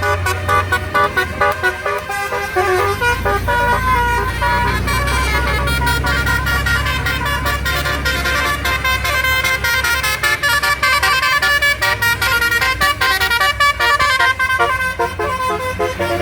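Basuri telolet horn playing a fast multi-note tune, its pitched honks changing in quick succession, over a vehicle's steady low running hum.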